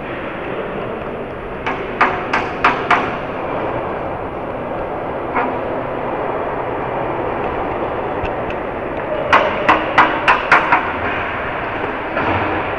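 Model train running, heard from a camera riding on it: a steady running noise with two quick runs of sharp clicks as it rolls over the track, about four near two seconds in and six or seven near ten seconds.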